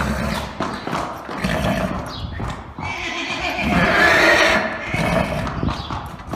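Horses neighing and whinnying, with one long whinny from about halfway through and short knocks between the calls.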